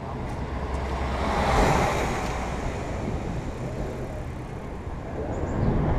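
A box truck drives past on the adjacent road: its engine hum and tyre noise swell to a peak about two seconds in, then fade into steady road noise.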